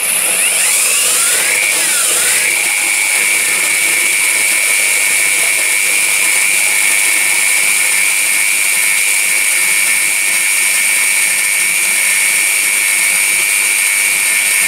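Einhell electric paddle mixer running, its paddle stirring aquarium gravel in a bucket of water to wash it. The motor speeds up over the first two seconds, dipping once, then holds a steady high whine.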